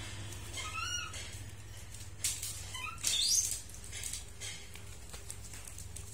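Baby monkey squeaking in short high calls: an arched squeal about half a second in, a brief chirp near the middle and a rising squeal just after it, over a steady low hum.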